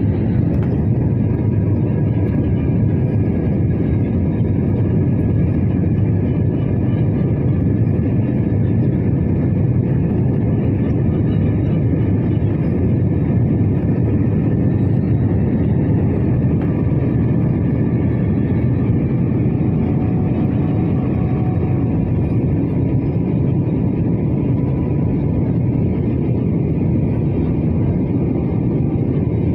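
Steady low roar of an airliner's jet engines and rushing air, heard inside the cabin during the climb after takeoff, with a faint steady whine above it.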